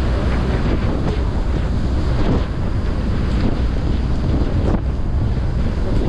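Strong wind buffeting the microphone on the open deck of a moving tour boat, as a steady, heavy low rumble.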